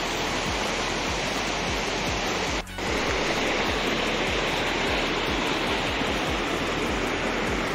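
Fast mountain river rushing over rocks in rapids, a steady sound of white water. It cuts out for a moment about two and a half seconds in, then carries on.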